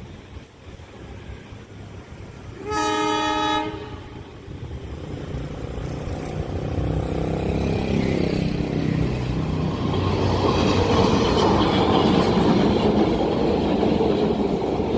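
Locomotive horn sounds one blast of about a second, then a long-distance train approaches and passes, growing steadily louder, its wheels rumbling and clattering on the rails.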